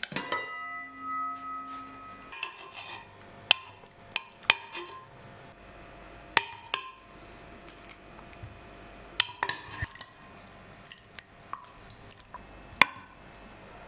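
Dishes and utensils clinking: a struck dish rings briefly at the start, then sharp single clinks come at irregular intervals, several seconds apart.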